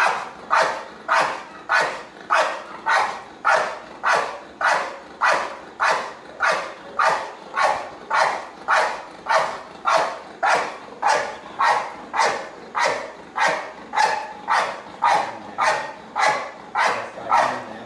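Protection-trained dog barking steadily at a decoy holding a bite sleeve: a sustained guard bark at a very even rate of about two barks a second.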